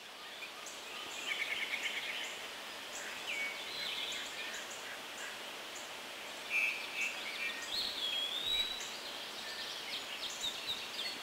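Woodland ambience: several birds chirping and trilling over a steady background hiss, with a quick rattling trill about a second in and a drawn-out whistled note near the end.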